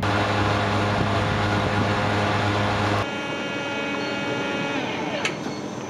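Petrol pump motor humming steadily while fuel is dispensed. About three seconds in it gives way to a coffee machine's higher whine as it pours frothed milk into a mug.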